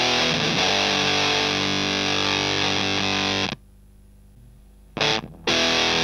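Electric guitar through a Tonebender MkII clone fuzz pedal at maximum gain with its bias starved (the 'Velcro' setting): a distorted chord is held for about three seconds and then cuts off abruptly. After a brief pause a short fuzzy stab sounds, and a new chord starts near the end.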